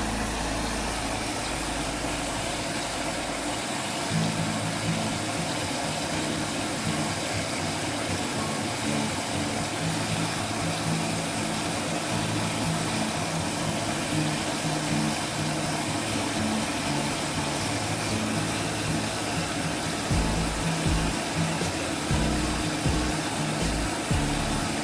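Background music with a plodding bass line, playing over a steady rushing noise.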